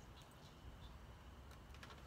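Near silence: a faint low hum, with a few faint light clicks near the end.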